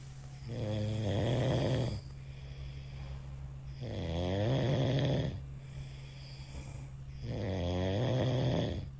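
A sleeping person snoring: three long, rattling snores on the in-breath, about three seconds apart, over a steady low hum.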